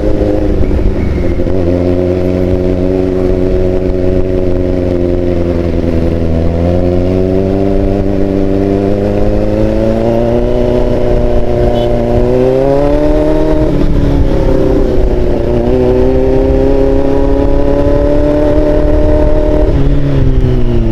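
Big sport motorcycle engine running loud while riding, its pitch climbing gradually, dropping suddenly about two-thirds of the way through, then holding steady and falling away near the end.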